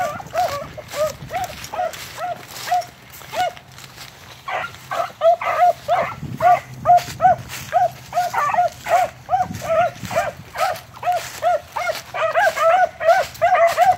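Two beagles giving mouth on a rabbit's track: quick, repeated chop barks, two or three a second, thinning briefly around four seconds in, then running on thicker with the two voices overlapping near the end. Leaves and twigs crackle underfoot.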